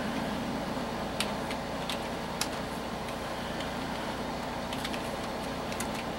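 Scattered keystrokes on a computer keyboard, a handful of separate clicks with a pause in the middle, over a steady background hum.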